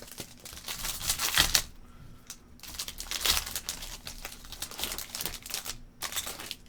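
Trading card pack wrapper being torn open and crinkled, in three bouts of crackling.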